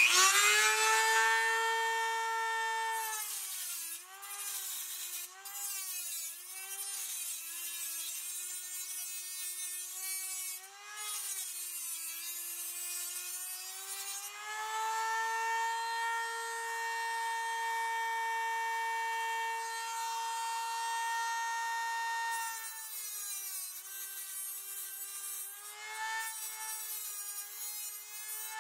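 Dremel rotary tool with an abrasive cut-off wheel whining at high speed while cutting a notch into aluminium Schluter tile edge trim. Its pitch sags and wavers again and again as the wheel is pressed into the metal, and holds steady and higher while it spins free.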